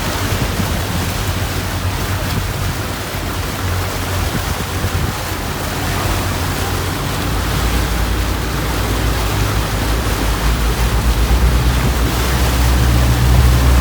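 A motorboat's engine droning steadily under a loud rush of wind and water as the boat runs across the sea; the engine drone grows louder about halfway through.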